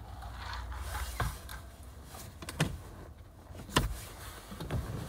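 A drink sipped through a plastic straw, then several sharp clicks and knocks scattered over a few seconds as the cup and lid are handled.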